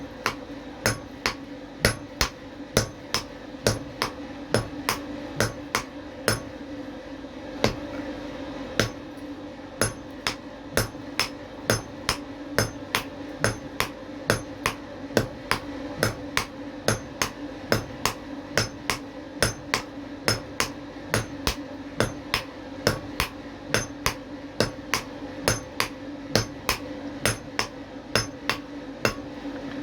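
Hand hammer striking copper in a steady rhythm of about two to three blows a second, with a steady low hum underneath.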